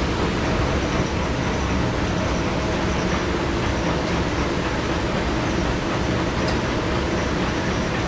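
Steady machine noise of a restaurant dish room, a constant hum and hiss from the commercial dishwashing machine and kitchen ventilation, unbroken throughout.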